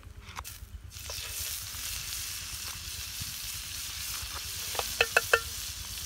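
Butter sizzling as it melts in a hot frying pan, the hiss coming in about a second in and holding steady. A few sharp clicks near the end.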